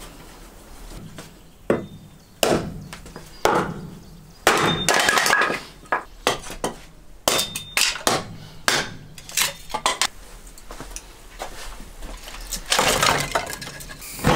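Kindling being split on a wooden chopping block: a string of sharp chopping strikes and the crack of splitting wood, some strikes in quick succession. Near the end a handheld gas torch is lit and starts a loud steady hiss.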